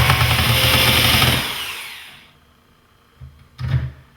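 Drill running as it drives a screw into a cabinet door, then winding down after about a second and a half, with a short second burst near the end.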